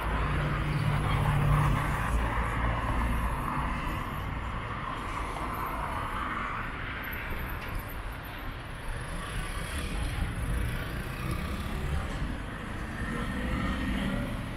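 City street traffic: cars driving past and turning through an intersection on wet asphalt.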